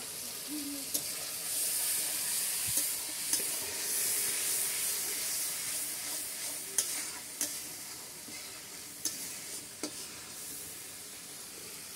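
Curry masala sizzling as it fries in oil in a steel kadai, stirred with a metal spatula that scrapes and clinks against the pan several times. The sizzle swells for a few seconds near the start, then settles.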